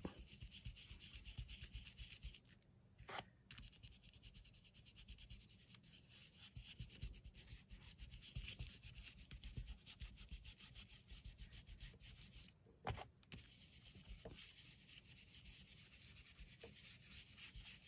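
Faint, quick scrubbing strokes of a round ink-blending brush rubbed over paper, stopping briefly twice with a light click.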